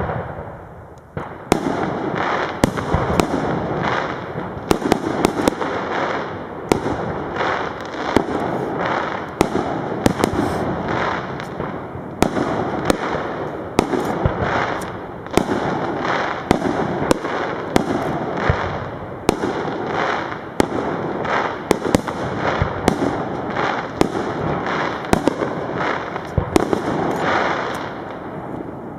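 Fireworks display: aerial shells bursting in a dense barrage of sharp bangs, about one to two a second, overlapping into a continuous crackling din. The barrage thickens about a second and a half in.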